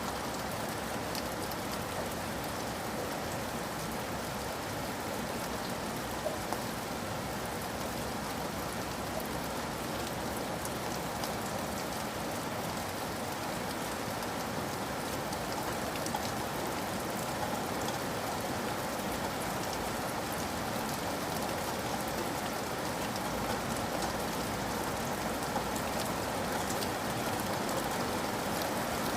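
Steady rain falling, with scattered drop ticks.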